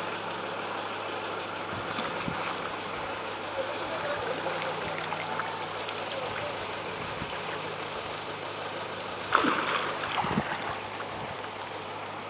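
Steady outdoor background noise with a low steady hum and faint distant voices. About nine seconds in comes a short, louder rush of noise.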